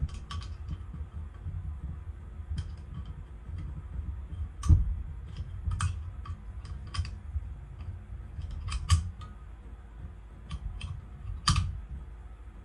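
Benelli M4 shotgun's shell latch and spring being fitted by hand into the receiver: irregular small metallic clicks and taps over a low handling rumble. The loudest clicks come about five seconds in and again near the end.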